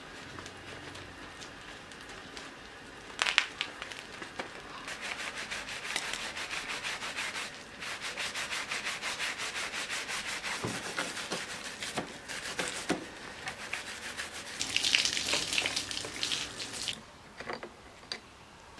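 Sponge and brush scrubbing a soapy mountain bike frame and tyre, a rough rubbing with steady back-and-forth strokes, with a sharp knock about three seconds in.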